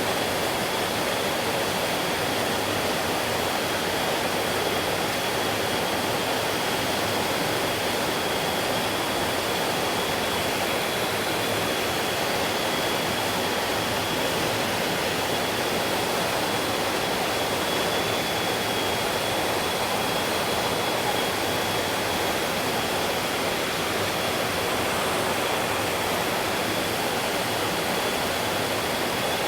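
Stream water flowing steadily, an even unbroken rush of water noise, with a thin steady high tone running through it.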